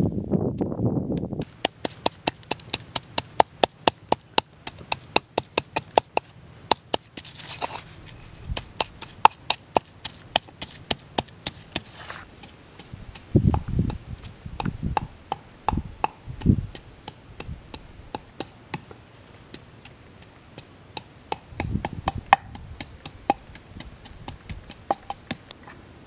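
Wooden pestle pounding chilies in a wooden mortar: sharp regular knocks, about three a second, through the first half, then scattered duller thumps and knocks.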